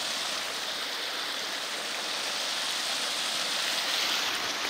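Small creek running: a steady rush of flowing water.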